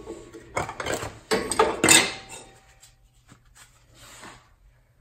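New brake pads clinking and clattering as they are handled and set down, their steel backing plates knocking together with a short metallic ring. The clatter is busiest in the first two seconds, then gives way to fainter handling.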